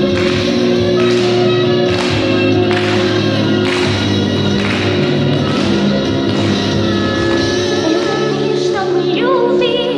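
A girl singing a slow ballad over a backing track with a steady beat. She holds a long note with vibrato near the end.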